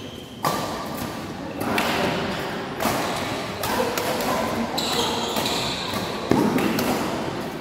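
Badminton doubles rally: a series of sharp racket strikes on the shuttlecock, roughly one every second or so, echoing in a large sports hall, with players' footsteps and shoe squeaks on the court.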